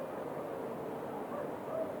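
Several dogs barking and yelping, their calls overlapping, over a steady background hiss of night ambience; the barks pick up near the end.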